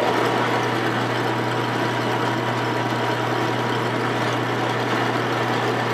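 Metal lathe running steadily at slow speed with a hole saw in the spindle cutting a cope into DOM steel tubing under power feed: an even hum with cutting noise and no chatter.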